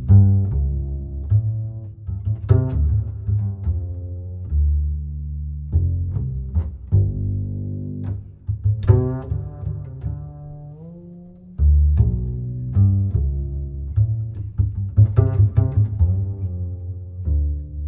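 Music with a deep, sustained bass line under shifting pitched notes.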